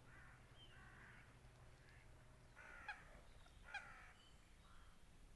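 Common moorhen calling to its juveniles: a series of faint short calls, the two clearest about three seconds in and again a second later.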